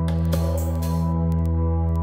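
Ambient background music: long sustained tones with light ticking percussion.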